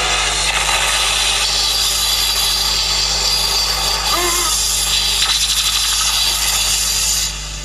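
Animated-film soundtrack: a loud, dense rushing noise like a magical storm wind, with a brief wavering cry a little past halfway. It drops away sharply near the end, over a steady low hum.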